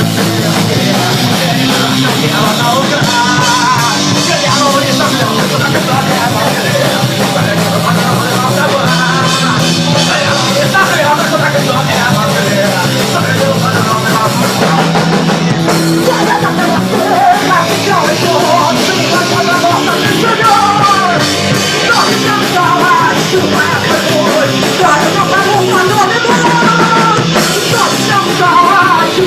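Loud punk rock played by a full band, drums keeping a steady beat under guitars and a wavering melody line, with no words heard.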